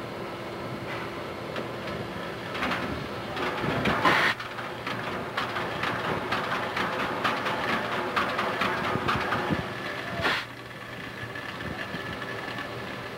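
Recorded steam locomotive sound effect: after a steady hum, the locomotive sets up a quick, even run of rhythmic beats, loudest about four seconds in. The beats cut off abruptly near the end, as at a tape edit, leaving the steady hum.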